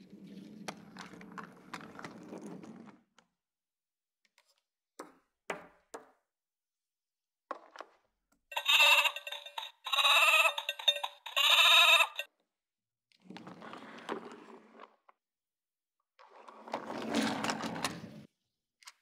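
Three recorded sheep bleats, one after another, played by the BRIO My First Farm's electronic sound meadow when the wooden sheep is set in it. Before and after them come quieter rolling and a few knocks of wooden toy pieces.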